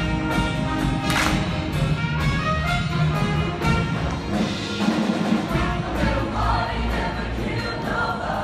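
Show choir singing in many voices over upbeat instrumental accompaniment with a steady beat.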